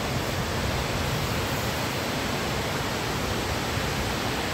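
Steady rush of water pouring down from a full reservoir's overflow.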